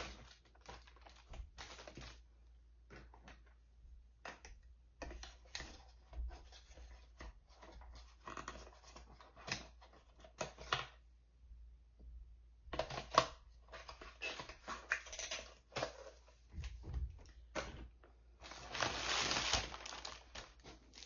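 Small clicks and taps from handling cosmetic packaging and lip products, with a longer burst of packaging rustling near the end.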